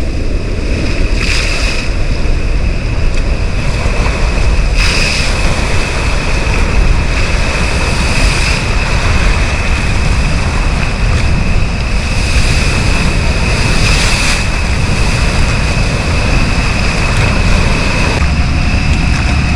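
Floodwater rushing loudly and steadily below Mio Dam on the flooded Au Sable River, with wind buffeting the microphone.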